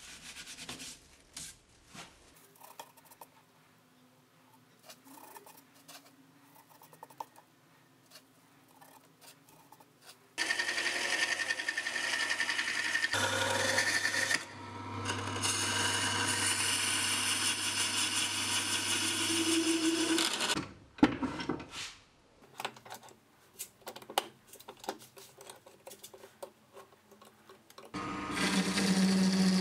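Quiet handling clicks and rustles, then a wood lathe running with a turning tool cutting a spinning wood blank: a steady motor hum under the loud noise of the cut for about ten seconds until it stops. After more quiet handling, the lathe starts again near the end with a strong steady hum.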